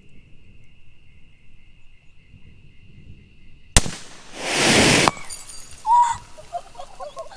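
Homemade sparkler bomb, a bottle packed with sparklers, going off: a sharp bang a little under four seconds in, then a loud rushing hiss of burning sparkler powder that swells for about a second and cuts off suddenly.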